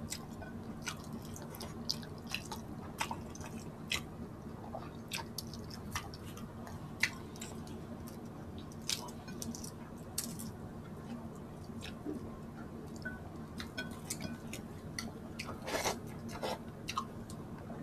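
Close eating sounds: irregular wet clicks and mouth smacks of chewing salmon head and shrimp from sinigang, over a low steady hum.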